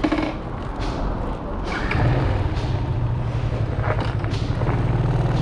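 A single thump, then about two seconds in a motorcycle engine starts and runs at a steady low idle.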